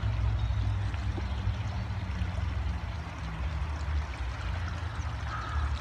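Steady rushing of flowing water over a constant low rumble.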